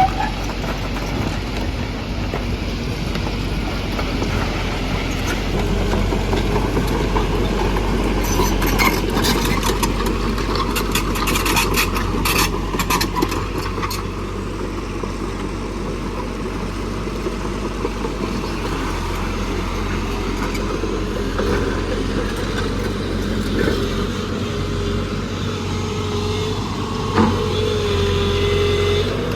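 JCB NXT 140 excavator running steadily under work, its engine giving a constant low hum. About nine seconds in comes several seconds of sharp clattering and knocking, and there is a single knock near the end.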